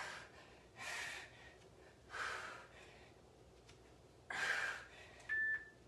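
A woman's hard breathing under exertion: three sharp, breathy exhales about one and a half seconds apart. Near the end comes a short high beep.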